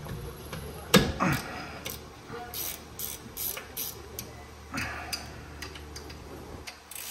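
Metal hand tools working on a rear disc brake caliper: one sharp clank about a second in, then a run of short metallic clicks, about three a second, and another clank near the end.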